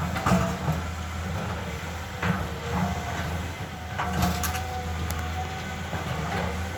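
Caterpillar excavator's diesel engine running with a steady low drone, with several sharp knocks from the machine at irregular moments, some trailing a faint thin whine.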